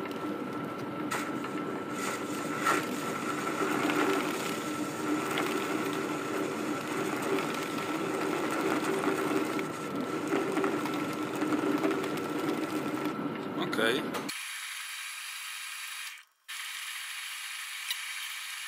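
TSB 20 metal lathe running while the tool cuts bronze stock: a steady machine whine under the scraping of the cut and falling chips. About 14 seconds in, the sound changes abruptly to a quieter, thinner steady hum with a high whine.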